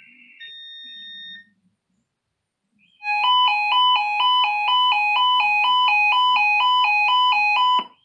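Weather alert radio receiver sounding its alert for a Required Weekly Test: a loud electronic warble of tones switching back and forth about three times a second, starting about three seconds in and lasting about five seconds. Before it, the tail end of a digital data burst and a short electronic beep.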